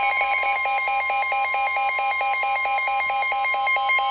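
Emergency Alert System attention signal sounding for a severe thunderstorm warning: a steady electronic alarm tone with a second tone pulsing about five times a second.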